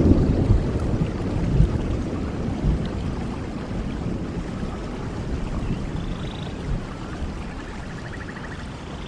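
Rain falling steadily, with a low rumble of thunder that dies away over the first few seconds.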